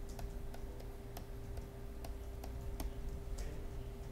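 Stylus tapping on a pen tablet while handwriting: light, irregular clicks, about two or three a second, over a faint steady electrical hum.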